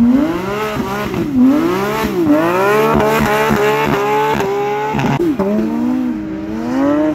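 Porsche 911's flat-six engine accelerating hard. Its pitch climbs, drops sharply at each upshift and climbs again, several times in quick succession.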